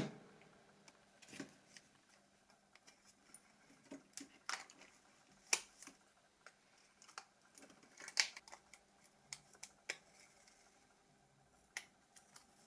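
Sparse, faint clicks and taps of small tools and plastic phone parts being handled during disassembly of a Nokia 6600i, with the loudest clicks about halfway through and again about two thirds of the way in.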